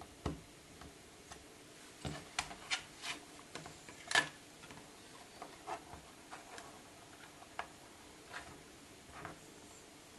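Small plastic model-building plates and a pointed tool handled on a work mat: a scatter of light clicks and taps, thickest between about two and four and a half seconds in, the loudest a little after four seconds.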